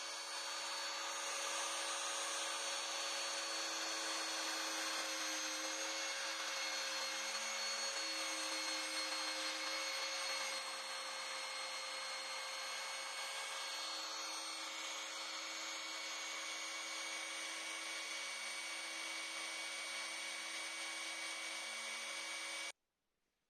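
Electric wood router running steadily with a constant whine, a little quieter from about halfway through, then stopping abruptly near the end.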